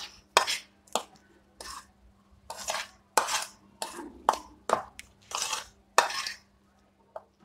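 A spoon scraping and knocking against a plate while stirring dry flour, salt and carom seeds together: a run of short, irregular scrapes and clicks, a few of them longer strokes.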